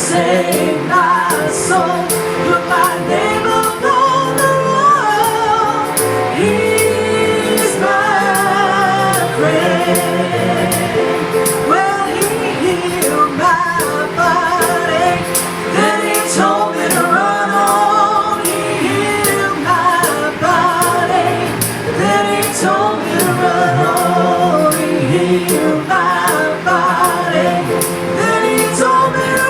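Gospel-style worship song: several voices singing together over a band, with a steady drum beat.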